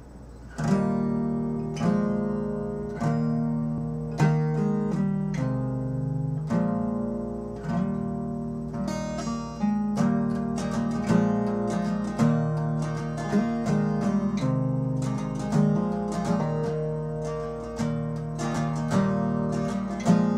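Acoustic guitar playing the instrumental opening of a folk song: strummed chords with ringing notes, starting about half a second in and picking up pace partway through.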